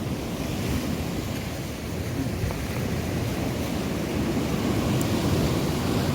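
Sea surf washing over a rocky shore, with wind buffeting the microphone in a steady low rumble.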